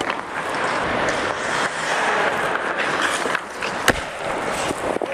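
Ice hockey skate blades scraping and carving on the ice in a steady, busy hiss, with a single sharp knock about four seconds in.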